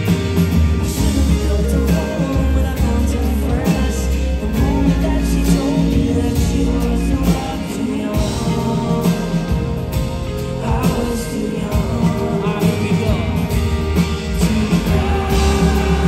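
Live band music with acoustic guitar and singing, running without a break.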